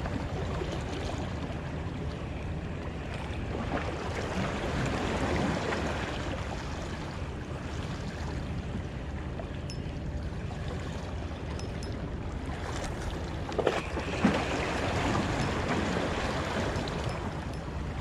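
Steady wash of sea water and wind, with a low steady hum beneath and a couple of sharp knocks about three-quarters of the way through.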